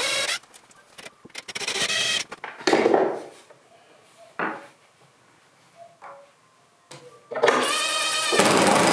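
Cordless impact driver driving screws through a steel strap hinge into an oak board: a few short runs of the driver with handling knocks and rubbing between them, then near the end it starts up and runs steadily under load.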